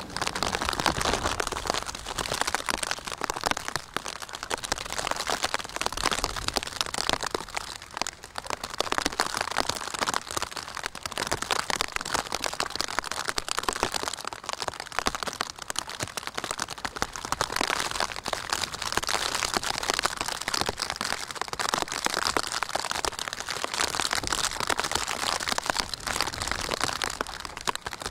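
Rain pattering close to the microphone: a dense, steady crackle of many small drop hits.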